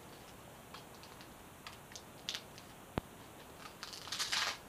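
Handling noise as a battery pack goes into a jacket's inside pocket: scattered light clicks and taps, one sharper click about three seconds in, then a short burst of fabric rustling near the end.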